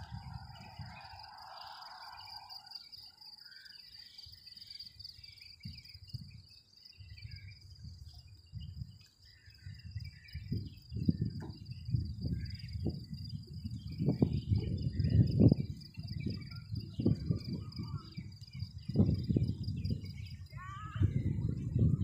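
Outdoor ambience: a steady high insect trill with scattered bird chirps. From the middle on, wind buffets the microphone in irregular low gusts, which become the loudest sound.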